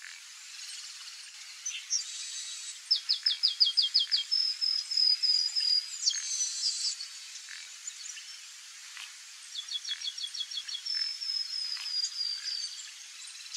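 Chestnut-capped blackbird singing two song phrases, each a quick run of about eight clipped descending notes followed by a string of higher notes drifting slightly lower; the first comes about three seconds in, the second about ten seconds in, with a harsher buzzy note in between. A steady background hiss runs underneath.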